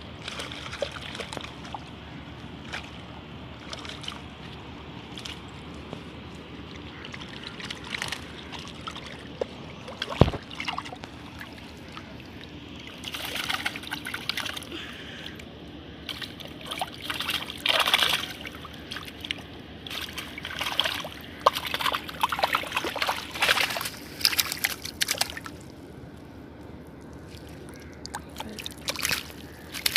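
Water sloshing and splashing in irregular bursts, busiest in the second half, over a steady hiss, with one sharp knock about ten seconds in.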